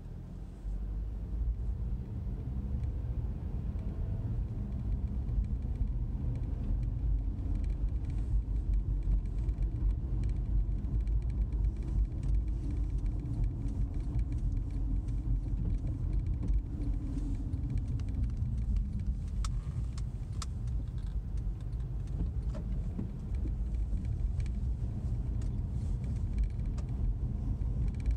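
Inside a moving car: a steady, deep rumble of engine and tyres on the road. A few faint clicks come about two-thirds of the way through.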